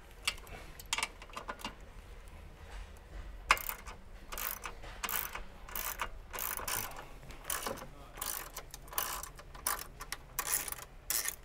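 Hand ratchet clicking as it backs off the nuts on the front sway bar brackets, a few scattered clicks at first, then a steady run of ratcheting strokes about twice a second from a few seconds in.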